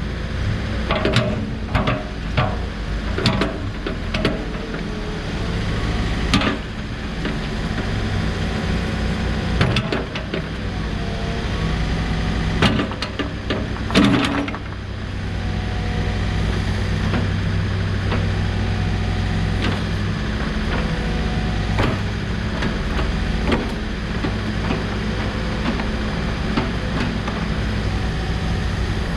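A Case 590 Super N loader backhoe's diesel engine running while its loader and backhoe hydraulics are worked through their movements, the engine note rising and easing for stretches as it is loaded. Repeated clunks and knocks from the moving arms, bucket and linkage sound over it.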